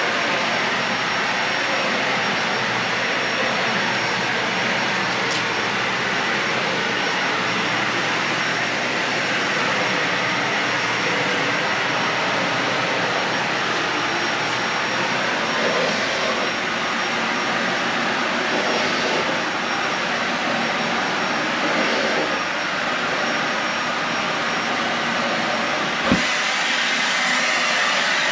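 Dyson Ball Animal 3 upright vacuum cleaner running steadily on carpet, its floor selector at the middle setting: an even whoosh of motor and suction. A single sharp knock comes near the end, after which the sound shifts slightly.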